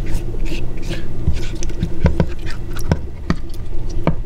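Fingers pressing vinegar-soaked cooking paper down onto mackerel fillets to push out trapped air: scattered small wet squishing and crinkling sounds, with a few soft knocks, over a faint low steady hum.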